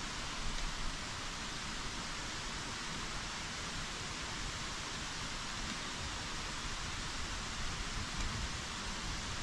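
A steady, even hiss of water, with a low rumble that comes and goes underneath.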